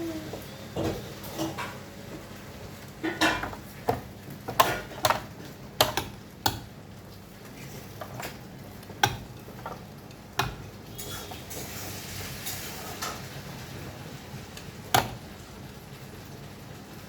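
A series of irregular sharp knocks and clinks of hard objects being handled or tapped, thickest between about three and six seconds in, with a last louder knock near the end, over a steady low hum.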